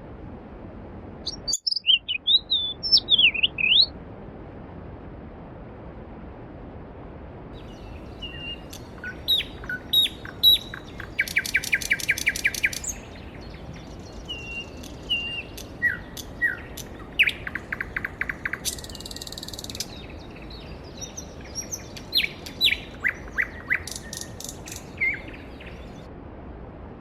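Songbirds chirping and singing, with short sweeping calls and rapid trills, over the steady rush of a mountain stream. The sound drops out briefly about a second and a half in.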